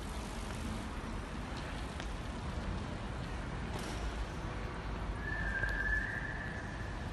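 Steady low rumble of open-air ambience, with a high, even whistle-like tone starting about five seconds in and lasting about two seconds.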